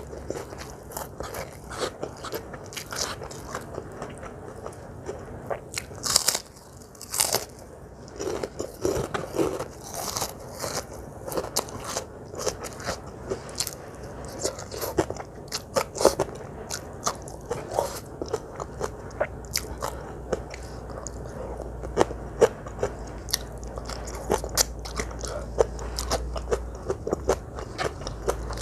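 Close-miked eating: repeated crunchy bites and chewing of crisp food, with many small wet mouth clicks. Two especially loud, crisp crunches come about six and seven seconds in.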